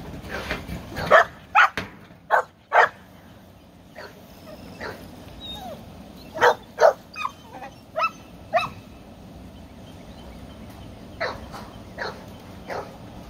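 Puppies yipping and barking in short, high calls that come in clusters: a few in the first three seconds, a quick run of five in the middle, and a few weaker ones near the end.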